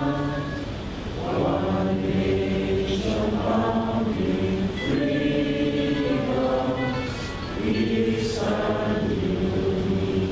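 A standing crowd of many voices singing together in slow phrases of long held notes.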